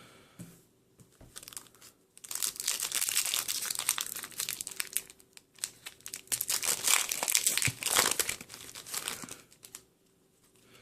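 Foil booster-pack wrapper crinkling and tearing as it is ripped open, in two spells of a few seconds each.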